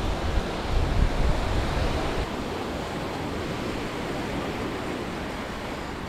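Small sea waves washing onto a sandy beach in a steady hiss of surf. Wind buffets the microphone with a low rumble for the first two seconds or so.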